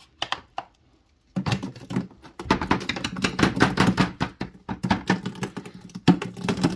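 Thick blended pear pulp being tipped out of a plastic blender jar into a plastic bucket: a few clicks at first, then from about a second and a half in a dense run of wet clicks, taps and scrapes as the pulp slides out and the jar knocks against the bucket.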